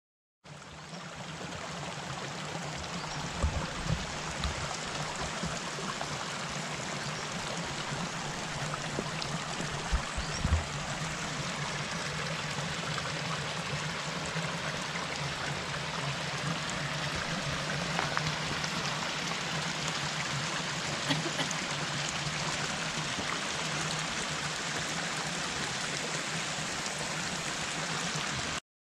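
A stream running: a steady rush of flowing water. A few short low thumps break in about three to four seconds in and again around ten seconds.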